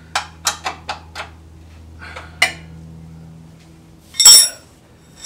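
Metal hand tools and suspension hardware clinking under a Jeep: a quick run of five sharp clicks, another a second later, then a louder metallic clank about four seconds in, over a low steady hum.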